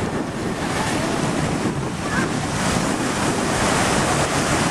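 Small waves washing and breaking in the shallows, with wind buffeting the microphone.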